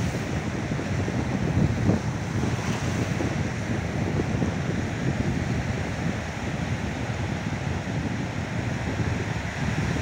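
Caspian Sea surf breaking and washing in over a shingle shore, a steady wash of noise with wind rumbling on the microphone.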